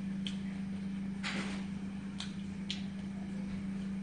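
Room tone: a steady low hum with a few light clicks and a short hiss about a second in.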